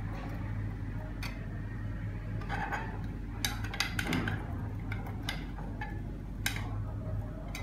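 Glass stirring rods clinking and tapping against glass beakers, in scattered sharp ticks with a quick cluster of them around the middle. A steady low hum runs beneath.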